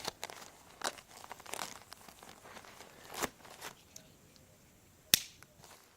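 Plastic mailing bag being handled and cut open: scattered crinkles and short clicks, with one sharp click about five seconds in.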